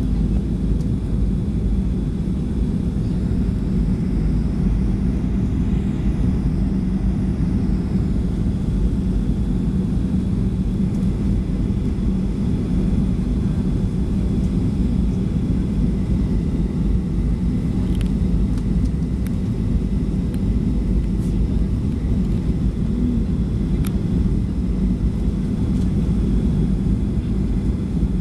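Steady low rumble of jet engines and rushing air heard inside the cabin of a Boeing 737 on final approach, with a constant hum underneath.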